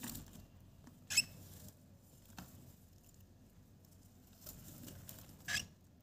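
Baby cockatiels scuffling and flapping in loose wood shavings inside a cardboard box: soft scratchy patter, with two short, sharp sounds about a second in and near the end.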